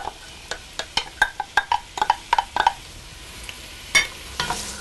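Wooden spoon knocking and scraping chopped onion out of a glass bowl into an enamelled cast-iron pot: a quick run of clinks and knocks for the first two and a half seconds, then a single knock about four seconds in. A faint sizzle of the onions in hot olive oil follows near the end.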